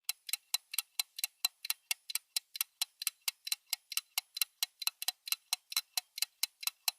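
Clock-tick countdown sound effect: quick, even ticks, about four or five a second, starting suddenly out of silence.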